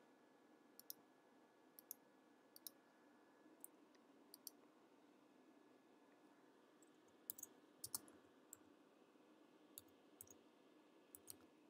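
Faint, scattered clicks of a computer mouse and keyboard keys, about fifteen in all, some in quick pairs, over a quiet steady room hum.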